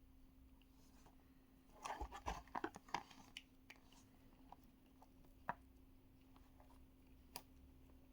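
Hot Wheels blister-card packaging being handled and opened: a short burst of plastic crinkling and clicks about two seconds in, then a few single clicks, over a faint steady hum.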